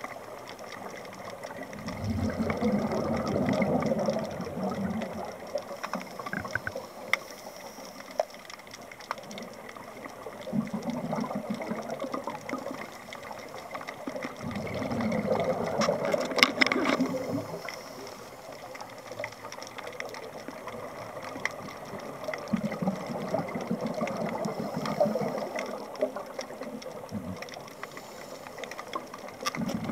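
Scuba divers' exhaled air bubbling out of their regulators underwater, heard muffled in surges every six to eight seconds, like a breathing cycle, with a sharp click about halfway through.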